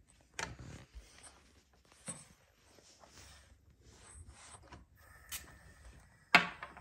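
Scattered light clicks and taps of a stainless portafilter and espresso tools being handled, then a sharp metallic clank near the end as the portafilter is fitted into the group head of a Salvatore spring-lever espresso machine.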